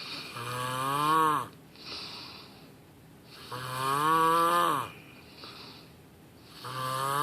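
A person snoring: three deep, buzzing snores about three seconds apart, each lasting about a second and bending down in pitch at its end, the last starting near the end. Softer airy breaths come in between.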